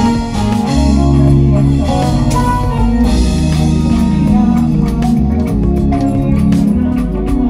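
Live band music over a loud PA: a steady bass line and drum kit hits under other pitched instruments.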